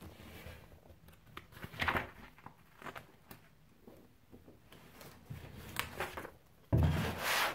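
Paper pages of a spiral-bound sketchbook being turned and handled: soft rustles and light ticks, with a louder rush of paper noise near the end.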